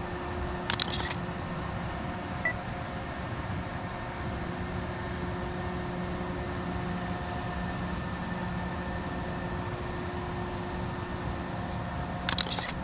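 Hasselblad H4D medium-format camera on a tripod firing its shutter twice, about a second in and again near the end, each a quick cluster of mechanical clicks. A short beep follows the first shot, over a steady low hum.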